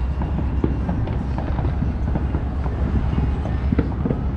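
Distant fireworks and firecrackers popping irregularly across the neighbourhood, a few sharper pops standing out, over a steady low rumble.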